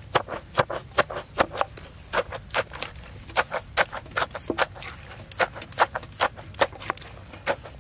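Wooden pestle pounding papaya salad in a clay mortar: a steady run of short, sharp knocks, about three or four a second.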